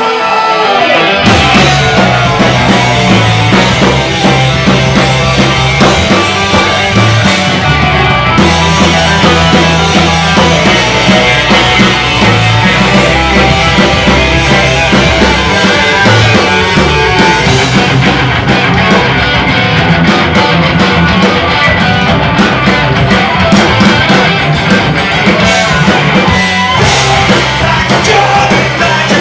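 Live punk rock band playing at full volume: electric guitar, bass guitar and drum kit, loud and steady without a break.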